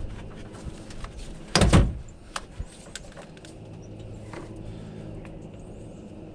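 A heavy thump about a second and a half in as a car battery is set down into its tray, followed by a few light clicks.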